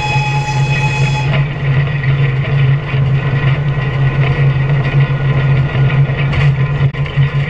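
TEM2 diesel shunting locomotive's six-cylinder diesel engine running under way, a steady low drone heard from inside the cab. A high, whistle-like tone rides over it and stops about a second in.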